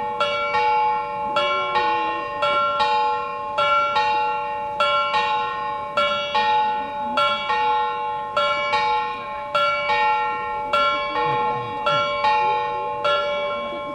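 Bells of the Männleinlaufen mechanical clock on Nuremberg's Frauenkirche chiming: a steady sequence of struck bells of a few different pitches in a repeating pattern, about one strike every 0.7 seconds, each ringing into the next. The ringing stops near the end.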